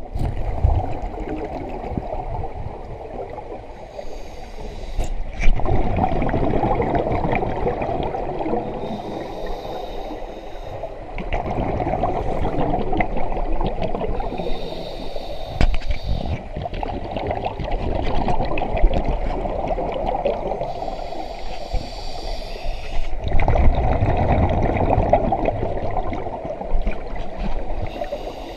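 Scuba diver breathing through a regulator underwater: a short hissing inhalation, then a longer gurgling rush of exhaled bubbles, repeating every five or six seconds.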